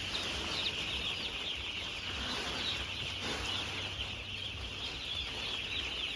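Thousands of four-day-old broiler chicks peeping together in a brooding shed: a dense, steady chorus of high cheeps.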